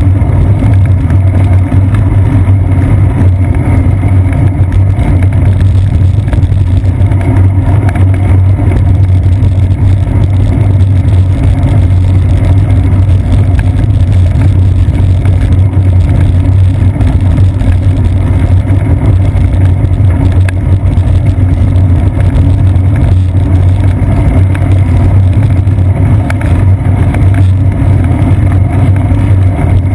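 Loud, steady low rumble of wind and road vibration on the microphone of a seat-post-mounted GoPro Hero 2 while the bicycle rolls along a paved path.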